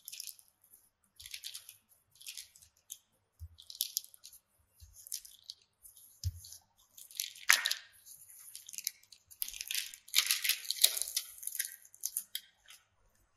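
Parchment paper crinkling and rustling under a wooden rolling pin as dough is rolled flat between two sheets, in repeated strokes with a few soft low thuds from the pin. The crinkling is loudest in the second half.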